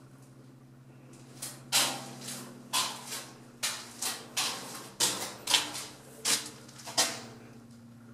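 Footsteps on a concrete floor inside a small concrete bunker, about two steps a second, starting about a second and a half in and stopping near the end.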